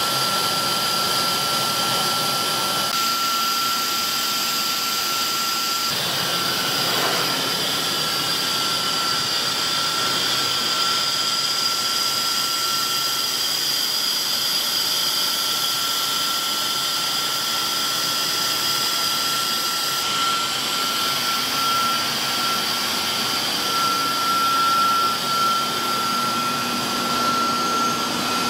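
PPR pipe extrusion line running: the steady whir of its extruder motors, pumps and vacuum sizing tank, with a thin high whine running through it.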